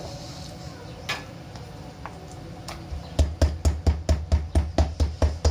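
A large kitchen knife chopping rapidly into a raw pork chop on a cutting board to tenderise it. It starts about three seconds in as a fast, even run of knocks, about four a second, each with a dull thud from the board.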